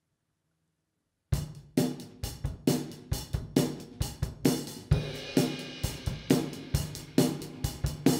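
About a second of near silence, then a drum beat starts: steady kick and snare strokes a little over two a second, with cymbal wash joining about five seconds in. It is the drum intro opening a worship song.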